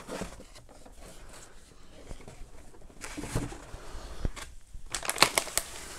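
Quiet handling of a cardboard box and its foam packing insert, then a quick run of crinkles and clicks near the end as a foil anti-static bag is grabbed.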